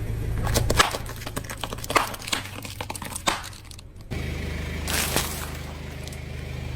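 Car tyres rolling over crunchy plastic toys, crushing them with a run of crackling and snapping, while the car's engine runs steadily underneath. The crunching breaks off briefly just after four seconds and comes back for a moment about a second later.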